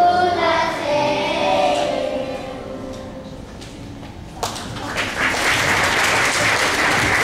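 A group of children singing together, ending the song on a held note that fades out over the first two seconds. After a short lull, audience applause starts suddenly about four and a half seconds in and carries on.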